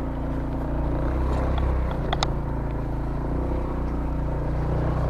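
Motorcycle engine running steadily at low revs, with a couple of short sharp clicks a little over two seconds in.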